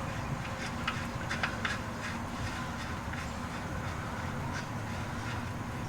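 Faint scattered clicks and light handling noises over a steady low hum.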